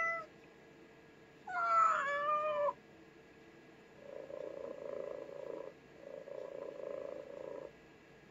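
Neko98's recorded cat sound effects played through a Compaq laptop's small speaker: one falling meow about a second and a half in, then two longer, lower buzzing sounds of a second and a half each.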